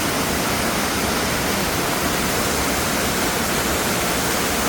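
Waterfall with a heavy springtime flow, a loud, steady rush of falling water.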